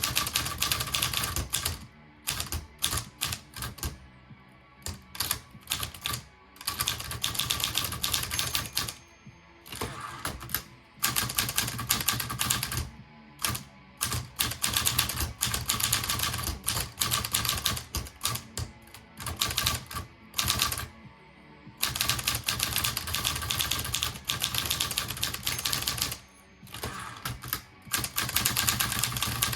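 Olivetti Lettera 22 manual typewriter being typed on: fast runs of key strikes lasting a few seconds each, broken by short pauses. The keys are struck firmly, since each stroke also drives the ribbon and the carriage advance.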